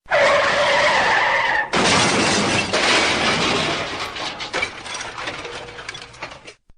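Car tyres squeal in a skid for under two seconds, then a car crashes: a sudden loud impact whose crunching, clattering debris slowly dies away over about five seconds.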